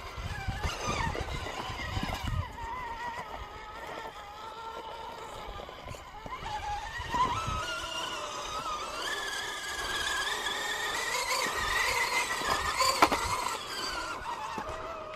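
RC rock crawler's electric motor and geared transmission whining, the pitch rising and falling as the throttle is worked over rocks. There are occasional low knocks and a sharp click about 13 seconds in.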